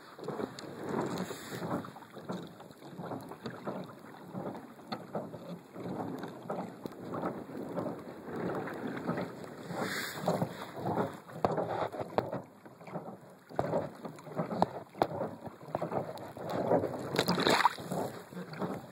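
Lake water splashing and gurgling irregularly against the hull of a moving Hobie Outback kayak, with a couple of louder splashes, about ten seconds in and near the end. Some wind buffets the microphone.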